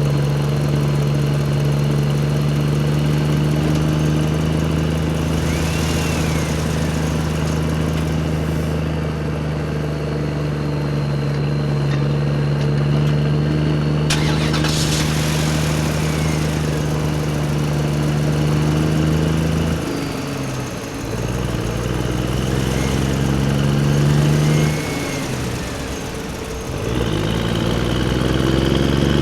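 Electric motors and gearboxes of radio-controlled toy construction vehicles running with a steady whine. The whine drops and shifts in pitch a few times in the last third as the load changes.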